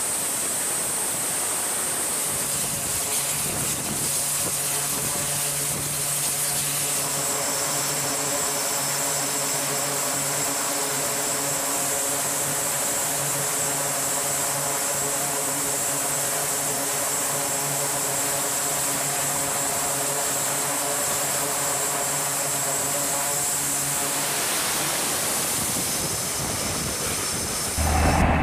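E-2C Hawkeye's twin turboprop engines running with propellers turning. A steady roar and high turbine whistle carry throughout, with a low propeller drone that comes in a few seconds in and fades a few seconds before the end.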